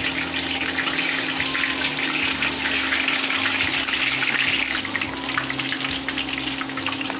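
Battered mushrooms and vegetables deep-frying in hot oil in a wok: a steady sizzle.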